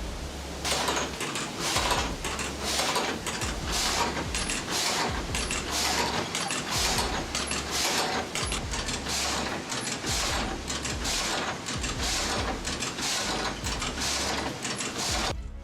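Water-powered sawmill machinery clattering in a steady rhythm of about two strokes a second, over a low hum. It cuts off suddenly near the end.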